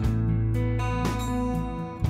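Background music: a strummed guitar, a chord about every half second over a steady low bass.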